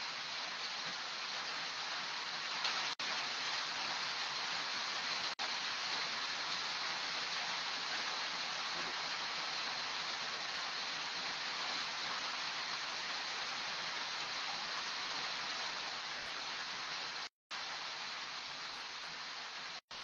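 Steady hiss of rain falling, with two brief dropouts to silence near the end.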